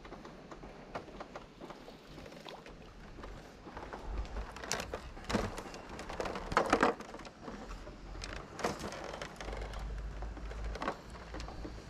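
Handling noise close to the microphone: scattered light clicks, taps and rustles, with a cluster of louder knocks about seven seconds in, over a low rumble that comes and goes.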